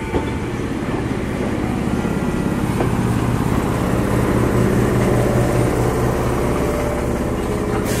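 Jōmō Electric Railway electric train running through the station: a steady low hum and rumble that swells a little toward the middle. The sound changes abruptly just before the end.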